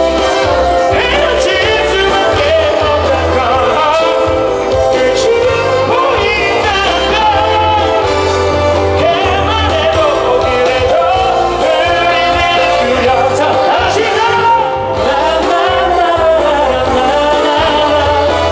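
Live K-pop concert music: male voices singing over loud amplified backing, with a steady pulsing bass.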